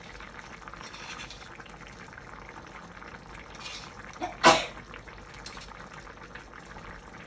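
Pan of pearl-barley and vegetable paella simmering, with a soft, steady bubbling as crushed black pepper is sprinkled over it. A brief, sharp, louder sound comes about four and a half seconds in.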